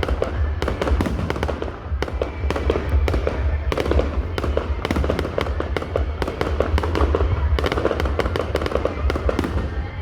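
Fireworks display going off in quick succession, dense crackling and sharp bangs over a constant deep rumble, with no pause.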